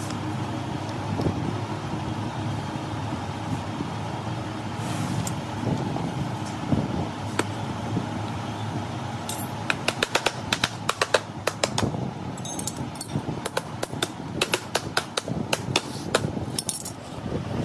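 Steady low hum, with a quick run of sharp clicks and taps through the second half as the plastic lid and parts of a lead-acid battery are handled and fitted.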